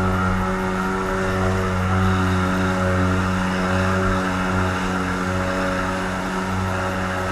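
Motor of a small watercraft running at a steady speed, a constant drone with a fixed pitch.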